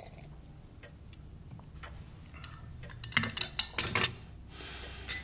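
Porcelain teacup and saucer clinking: a quick run of sharp clinks about three seconds in, over faint scattered ticks.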